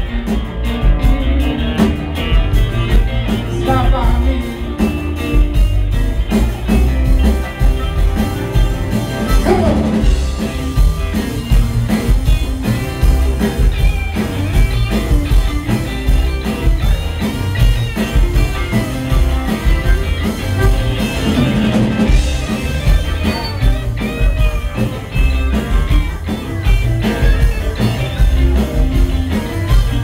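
Live reggae band playing through a club PA: electric guitars, upright bass and drums keep a steady beat while a harmonica, cupped to a microphone, plays the lead.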